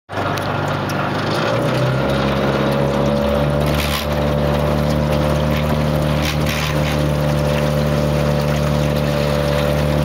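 Outboard motor running at a steady cruising speed, pushing a small aluminum boat across open river water, with a rush of water and wind noise around it. The engine's pitch steps up slightly about two seconds in, then holds steady.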